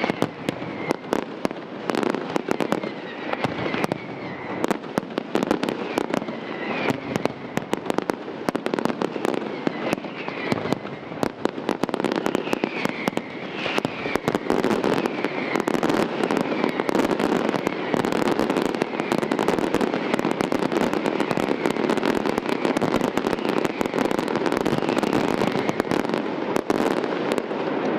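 Aerial fireworks display: a dense barrage of shells bursting in rapid bangs and crackling, with a few short whistles in the first half and the bursts running together into an almost continuous volley later on.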